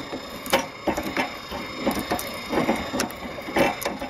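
Small metal wrenches clicking and scraping against a 3D printer's hotend as a brass nozzle is tightened into the heated heater block: a run of irregular sharp clicks over a faint steady hum.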